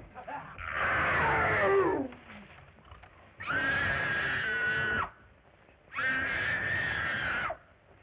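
Three long, shrill cries. The first slides down in pitch. The next two are each held at a steady high pitch, with a short gap between them.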